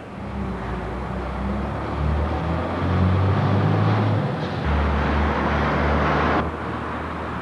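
Diesel engine of a Renault lorry hauling a livestock trailer, running and revving up: it grows louder over the first few seconds, dips briefly about four and a half seconds in, rises again, then eases off sharply about a second before the end.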